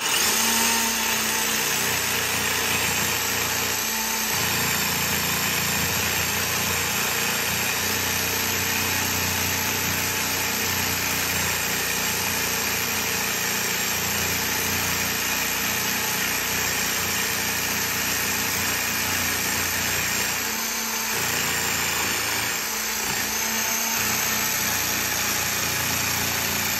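Jigsaw running steadily, sawing through a laminate (Formica) countertop with a blade that cuts on the down stroke to keep the laminate from chipping. The saw starts at the beginning and runs without a break.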